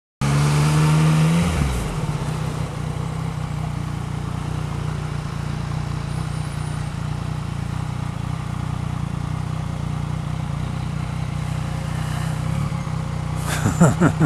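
Yamaha MT-09's inline three-cylinder engine running at low revs, with a falling engine note as it comes off the throttle in the first second or so, then a steady low note.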